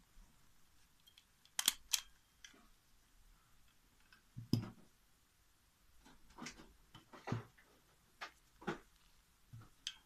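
A small handheld stapler snapping staples through folded paper tissue, two sharp snaps about two seconds in, with knocks and paper rustling as the stapler and mask are handled.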